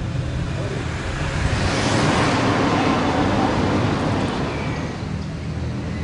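A road vehicle passes by: its engine and tyre noise swells to a peak about two seconds in and fades away again.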